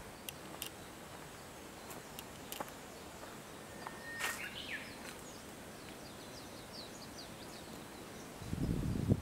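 Quiet woodland ambience: a faint steady hiss with a few light clicks, a short series of quick high bird chirps in the middle, and a brief low rumble near the end.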